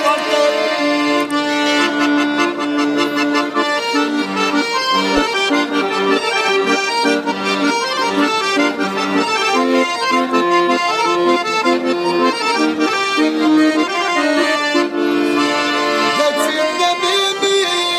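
Piano accordion played solo: a traditional-style melody with sustained reedy notes over held lower accompaniment.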